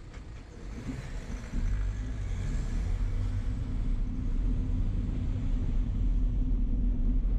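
Low road rumble and wind buffeting the microphone of a moving vehicle, growing louder about a second and a half in as it moves off from a standstill, with a van driving away just ahead.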